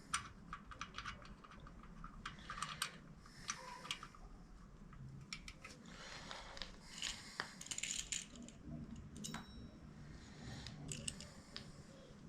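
Light metallic clicks, taps and scrapes of a 4 mm Allen key working the screws of a motorcycle's chrome oil-filter cover as it is fitted back on. The clicks come irregularly, thickest in the middle.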